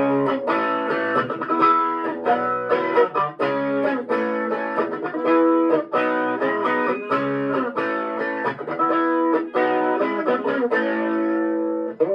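Electric guitar played through a Fender Champion 20 amp on its Tweed setting, with the flange effect's level turned up. It plays a continuous run of chords, changing about every half second.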